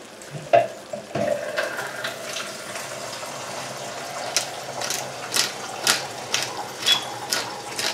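Chicken pieces sizzling in a frying pan, with a pepper grinder twisted over it from about four seconds in, giving a run of crunchy grinding clicks about twice a second as black pepper is ground onto the meat.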